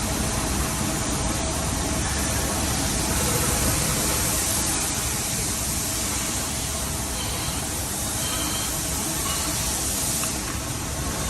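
Steady machine-shop noise of CNC machining equipment running, with a continuous hiss and a faint steady hum.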